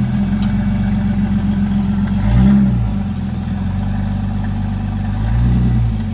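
Off-road truck engine running at low speed, revved briefly twice: once about two seconds in and again near the end.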